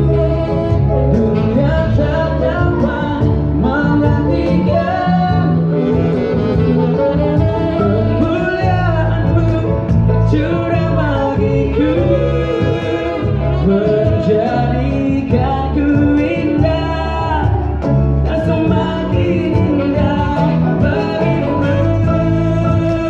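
Live band music: a man and a woman singing together into microphones, backed by piano and electric guitar, with sustained low notes underneath.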